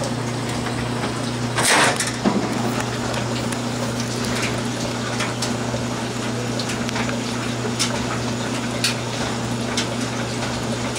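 Aquarium pump and water flow running steadily, with a low hum under a constant wash of noise. Small clicks are scattered through it, and a brief louder burst of noise comes just before two seconds in.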